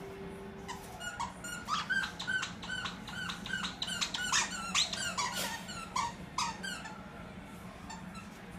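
Squeaky monkey toy squeaking over and over as a Shar-Pei chews it. A quick run of short squeaks, two or three a second, starts about a second in and dies down near the end.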